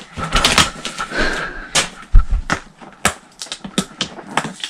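Cardboard gift box being torn open by hand: scattered rips, rustles and sharp taps and clicks at an uneven pace.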